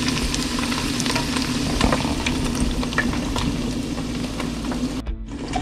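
Wontons deep-frying in hot oil at 350°F in an electric deep fryer: a steady sizzle full of small pops and crackles. The sound breaks off briefly about five seconds in.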